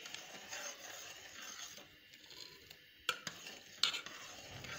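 A spoon stirring milk vermicelli in a pot, with two sharp clinks of metal on the pot about three seconds in and again under a second later.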